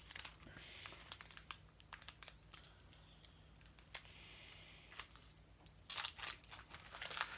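Pokémon booster pack wrapper crinkling and being torn open by hand, in scattered crackles with a louder burst near the end.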